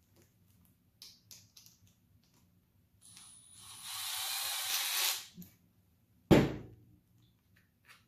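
Cordless impact driver running for about two seconds, driving a bolt into a hard plastic drill housing, after a few light handling clicks. A single loud knock follows about six seconds in.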